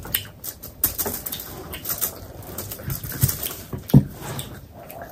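Close-miked eating: a run of irregular wet mouth clicks and smacks from chewing, with a dull thump about four seconds in.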